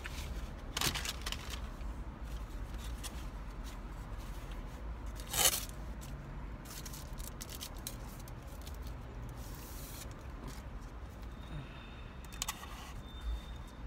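Eating a burger: chewing with scattered crinkles and scrapes of the paper wrapper being handled, the loudest rustle about five seconds in, over a steady low hum.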